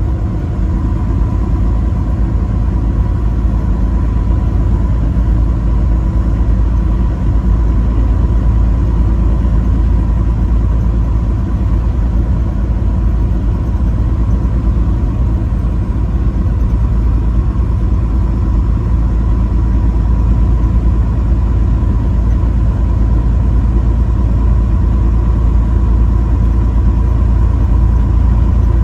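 Motor vehicle driving at a steady pace: a continuous low rumble of engine and road noise, with a faint steady whine above it.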